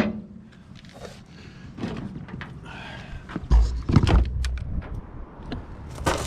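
Metal parts being handled and fitted: scattered clicks and clinks, with a heavier low thump about three and a half seconds in, as the Subaru Forester's wheel hub and bearing assembly is put back in place.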